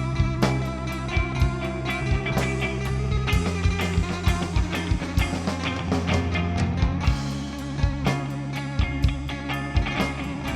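Instrumental rock music with electric guitar over sustained bass notes and a steady drum beat.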